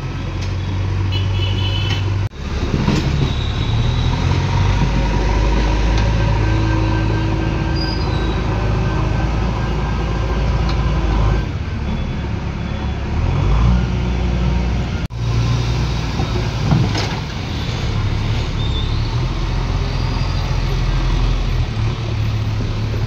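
JCB backhoe loader's diesel engine running steadily at work, a deep low drone with fainter held tones above it. The sound drops out sharply and briefly twice, about two seconds in and again about fifteen seconds in.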